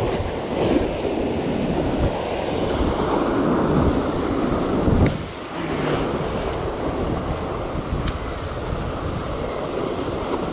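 Ocean surf breaking and washing over shoreline rocks, in loud surges, with wind buffeting the microphone.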